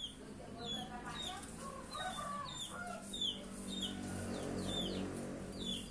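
Sooty-headed bulbul (kutilang) singing: short warbled phrases and a run of quick, high chirps that fall in pitch, with a chicken calling in the background.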